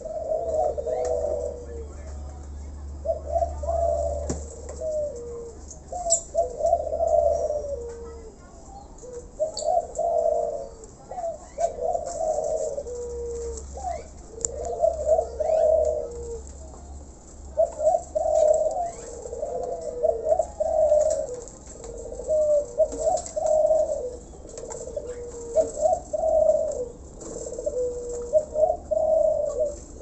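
Spotted doves (tekukur) cooing, one phrase after another every second or two, with short faint chirps from small birds over them.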